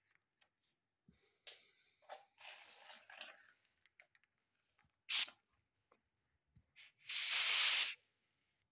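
Air hissing out of a bicycle tyre valve as a car compressor's screw-on hose connector is threaded onto it: a short sharp hiss about five seconds in and a louder one lasting about a second near the end, after some light handling rustle.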